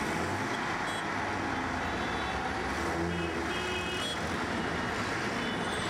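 Dense road traffic noise with a passenger bus engine running close by as the bus pulls past, and a few short high-pitched beeps about halfway through and near the end.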